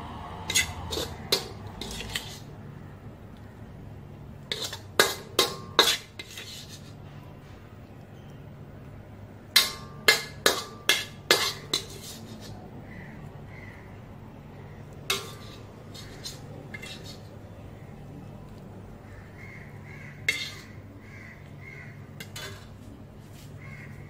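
Metal slotted spoon knocking and scraping against a metal wok as cooked food is scooped out: sharp clinks in quick clusters, four or five at a time around five and ten seconds in, then a few single knocks. Crows caw faintly in the background.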